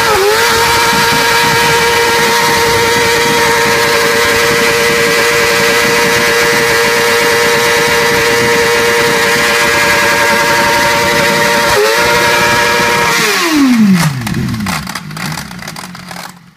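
BMW S1000RR inline-four sportbike engine held at high, steady revs during a stationary burnout, the rear tyre spinning on the tarmac, with the revs dipping briefly twice. Near the end the throttle is released: the revs fall away quickly, followed by a scatter of sharp cracks.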